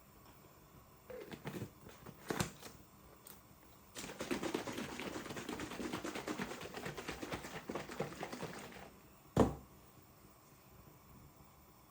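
A fast run of light clicks or taps for about five seconds, followed by a single sharp knock.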